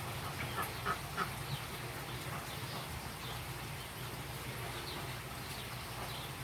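Ducks quacking in short calls, a cluster about a second in and a few more near the end, over a steady low hum.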